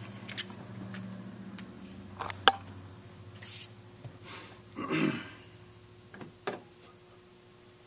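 Handling noise of a Marlin 1895 lever-action rifle being moved and set down on a workbench: a few small metallic clicks, then a sharp knock as it meets the bench, followed by softer scattered clicks and brief rustles.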